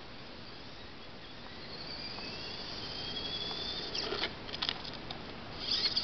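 Small motor and drivetrain of a 1/18-scale four-wheel-drive RC crawler whining, the whine rising in pitch as the car speeds toward the camera. This is followed by a few short clicks and scuffs about four seconds in and again near the end, as it turns on the asphalt.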